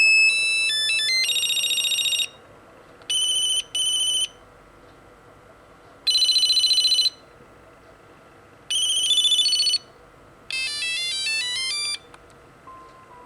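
Ericsson A1018s mobile phone playing its built-in monophonic ringtones one after another. Each is a short beeping tune or buzzy trill about a second long, with pauses between them, and a faster stepping melody near the end.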